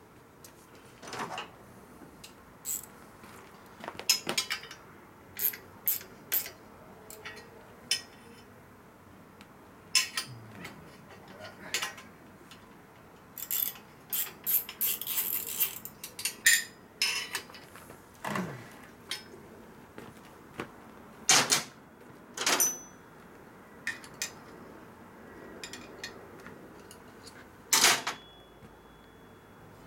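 Hand tools and small steel parts clinking and tapping against a motorcycle's metal hardware as a nut is worked by hand: irregular sharp clicks, with a denser run of clattering about halfway through.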